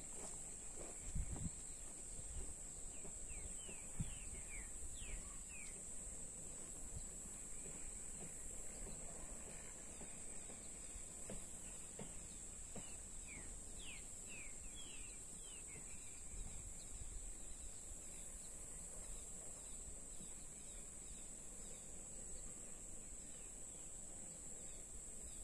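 Rural outdoor ambience: a steady high-pitched insect drone, two little clusters of short falling bird chirps, and wind rumbling on the microphone. A few soft footsteps on dirt in the first seconds fade as the walker moves off.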